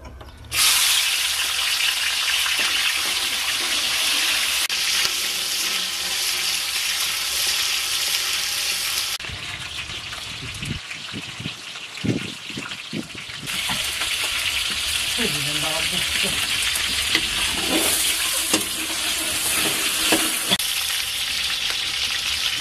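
Chopped onion dropped into hot oil in a large wok over a wood fire, bursting into a loud sizzle about half a second in and frying on steadily. The sizzle dulls for a few seconds in the middle, where a few low knocks are heard.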